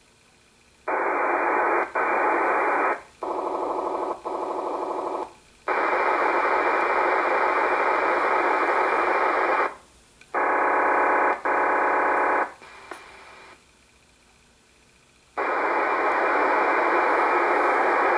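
Icom IC-R8500 receiver scanning VHF in FM and stopping on digital radio transmissions: about five bursts of raspy data noise lasting one to four seconds each, one of them lower in pitch than the rest. Each burst cuts off abruptly as the squelch closes between channels.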